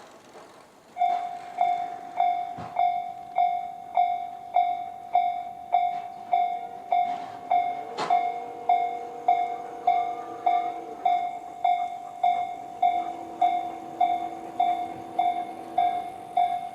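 Railway level-crossing alarm starting about a second in: the slow-tempo Tobu type-C electronic bell, a single-pitched ding repeating a little under twice a second. A sharp click sounds once about eight seconds in.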